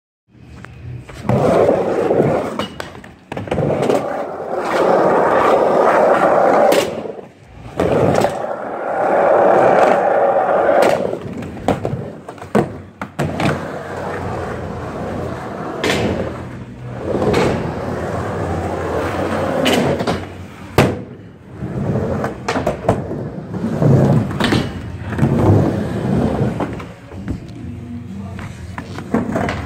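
Skateboard wheels rolling over the hard floor and wooden ramps of a skate park, a rushing noise that swells and fades as the board speeds up and slows. A few sharp clacks of the board stand out along the way.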